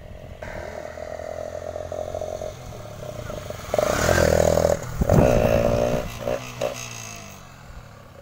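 Hero Glamour 125 single-cylinder motorcycle, its silencer fitted with a plastic Mountain Dew bottle to make it sound like a KTM Duke, approaching and passing close at speed. The engine note builds, is loudest about four seconds in, then drops in pitch and fades as the bike rides away.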